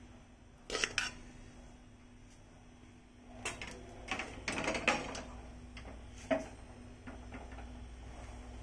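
A serving spoon knocking and scraping against a pot and a plate while rice is dished out: two sharp clicks about a second in, a run of clatter and scraping around the middle, and one more knock later on.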